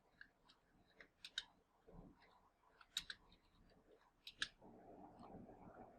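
Faint, irregular keystrokes on a computer keyboard while a typing test is being typed: about a dozen soft key clicks at an uneven pace, two of them a little louder.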